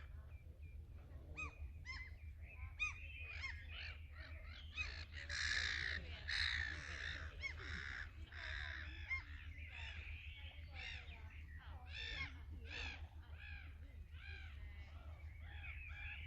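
Many birds calling at once, a dense chorus of short, rapidly repeated calls, with a louder stretch of harsher calls about five to seven seconds in. A steady low hum lies underneath.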